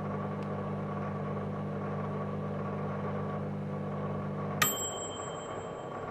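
Microwave oven running with a steady hum that stops about four and a half seconds in, with a click and a single bell ding as the cooking cycle ends; the ding rings on afterwards.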